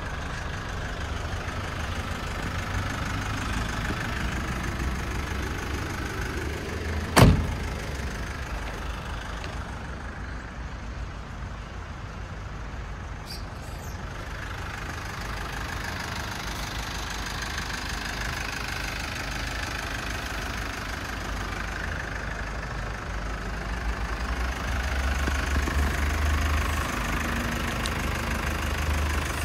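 Jeep Wrangler's 2.8 CRD four-cylinder common-rail turbodiesel idling steadily with a low, even clatter. A single sharp knock sounds about seven seconds in.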